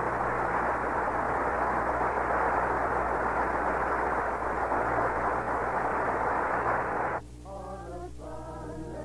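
A steady rushing noise that cuts off suddenly about seven seconds in, followed by quiet music starting.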